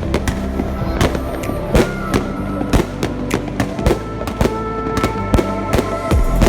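Aerial fireworks going off in rapid, irregular bangs, several a second, over background music.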